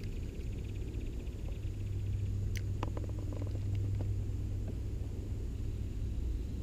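Steady low rumble on the microphone. Under it, a fast, even light ticking from a spinning reel being wound, stopping about two seconds in, then a sharp click and a short run of small clicks about three seconds in.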